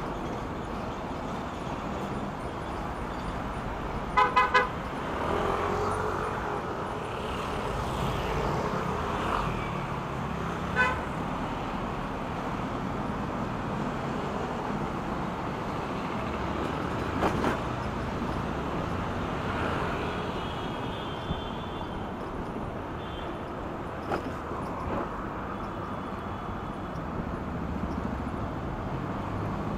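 Steady road and traffic noise from riding an e-bike in city traffic. A vehicle horn beeps three times in quick succession about four seconds in, and once more about eleven seconds in.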